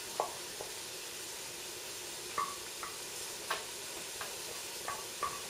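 Wooden spoon scraping thick hot chocolate out of a metal saucepan into a mug: a handful of short, light scrapes and taps over a steady faint hiss.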